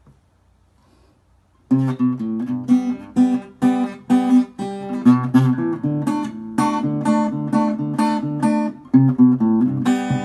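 Acoustic guitar strumming chords in a steady rhythm, starting about two seconds in, as the introduction to a song.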